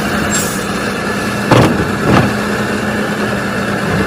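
Vehicle engine idling steadily with a low hum, broken by two loud thuds about a second and a half and two seconds in.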